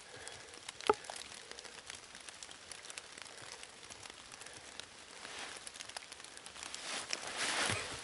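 Footsteps shuffling and rustling through fallen leaves on a steep slope, with a sharp click about a second in and a louder scuffing stretch near the end.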